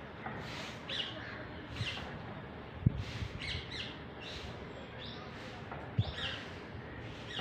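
Birds chirping, short high calls coming roughly once a second over steady background noise. Two sharp low thumps, about three and six seconds in, are the loudest sounds.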